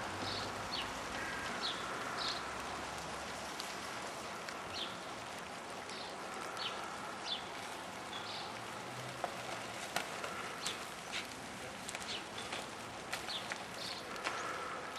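Outdoor ambience with scattered short, high bird chirps and a few sharp clicks over a steady hiss.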